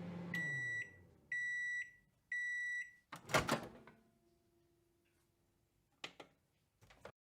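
Microwave oven ending its cycle: the running hum winds down and stops, three beeps sound about a second apart, then a loud clunk as the door is opened, followed by two small clicks near the end.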